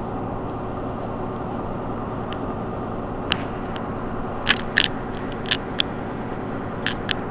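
Mercedes-Benz Citaro C2 city bus idling at a standstill, a steady engine hum. About halfway through, a scatter of sharp, short clicks and ticks sounds over it.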